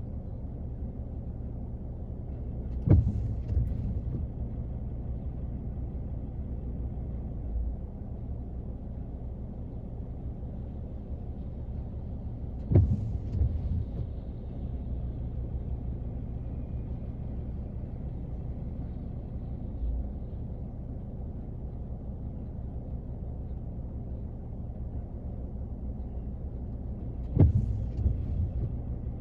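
Rain drumming on a car's roof, heard from inside the cabin as a steady muffled hiss. Three times a sudden sharp knock cuts through, each followed by about a second of low rumbling.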